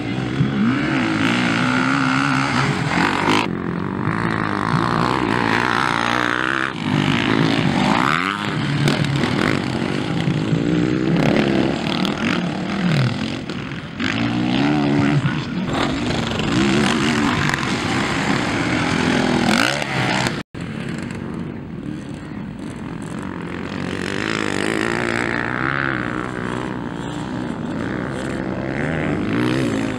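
Motocross dirt bike engines revving and riding past on a dirt track, the pitch rising and falling with throttle and gear changes. The sound changes abruptly a few times, with a brief dropout about twenty seconds in.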